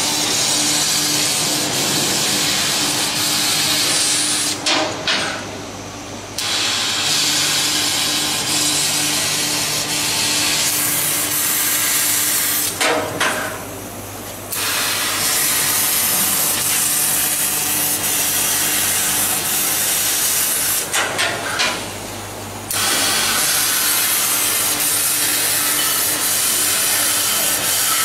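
YAG laser cutting head cutting steel plate: a loud, steady hiss of the cut and its assist gas, sparks flying. It stops three times for about two seconds, with a few clicks at each stop, as one cut ends and the next begins, over a steady low machine hum.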